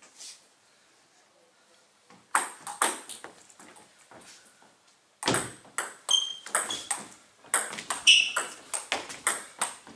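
Table tennis ball clicking off bats and table: a few sharp hits about two seconds in, then a quick rally from about five seconds in, two or three hits a second. A few short squeaks come between the hits.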